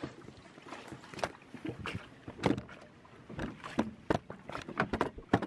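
Irregular knocks and clunks with water splashing, from an inflatable dinghy jostling against the side of a sailboat while it is held alongside in choppy water.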